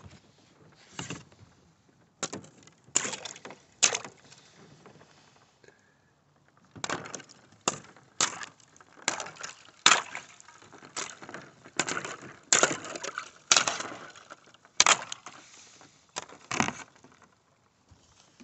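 Thin sheet ice on a lake cracking and shattering as a kayak paddle chops through it: a series of sharp, glassy crunches, roughly one every half second to second, with a short lull before the middle.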